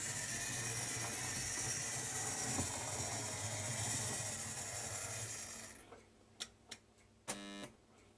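Model electric locomotive running on the layout track, its motor and wheels giving a steady mechanical whir and rattle that cuts out about two-thirds of the way through. After it two sharp clicks and a short electric buzz follow.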